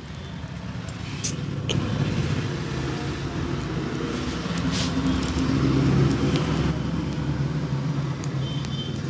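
A motor vehicle's engine running past with a low steady hum that swells to its loudest about midway and then eases off. A few sharp clicks sound over it.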